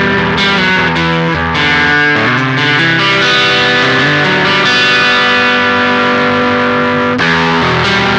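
Electric guitar chords played through the Mask Audio PGGe boost/fuzz pedal with its I (pre-gain) knob turned up, giving a heavily clipped, distorted fuzz tone. Several chords strummed in quick succession, then one long sustained chord that rings through the middle before being struck again near the end.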